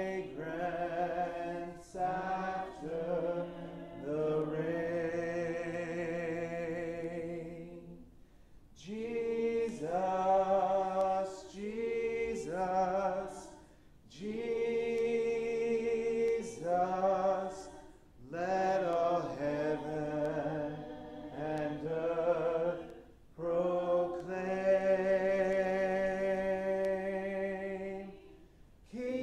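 A man singing a hymn solo and unaccompanied, in long held notes with some vibrato. The phrases are broken by short pauses for breath.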